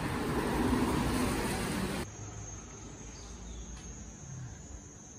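A steady rushing noise cuts off about two seconds in, giving way to quieter outdoor ambience with a steady high-pitched insect drone.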